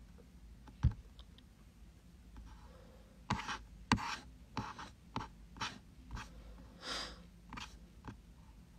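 A string of light taps and short scratchy rustles, about a dozen spread over several seconds, the sharpest a little under a second in and again just before four seconds in.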